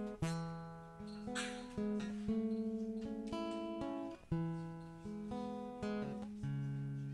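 Solo acoustic guitar playing an instrumental: picked notes and strummed chords that ring out and fade between changes, with no singing.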